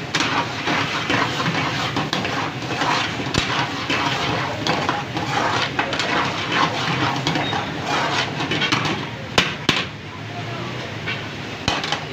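Metal utensils clattering and scraping against cookware in a busy kitchen: a rapid, irregular run of clinks and scrapes, with two sharp, louder strikes just before it eases off near the end.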